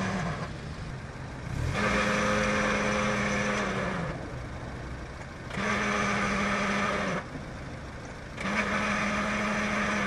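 Car engine running with a steady low whirring that comes in and drops out again about every three seconds, four loud stretches in all. It is the noise of a worn pilot bushing or pilot bearing in the flywheel, which shows up while the clutch pedal is held down and sounds much like a worn release bearing.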